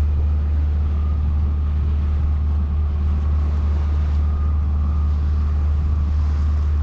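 Sailboat's inboard engine running steadily under way, heard as a constant low drone.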